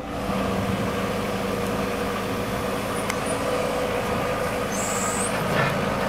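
New Holland skid steer loader's diesel engine running steadily, with a brief high whine about five seconds in.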